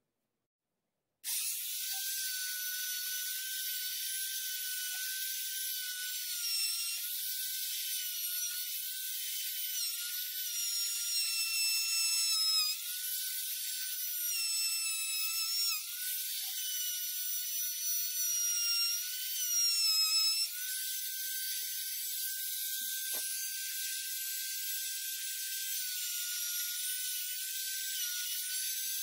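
Compact trim router running at a high-pitched whine as its bit cuts along the edge of a wooden board. The whine starts abruptly about a second in, and its pitch dips and wobbles briefly in places as the bit is loaded in the cut.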